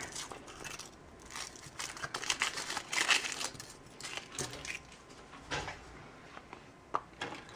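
Packaging being crinkled and torn open by hand, an irregular rustle of wrapper material, with a single small click near the end.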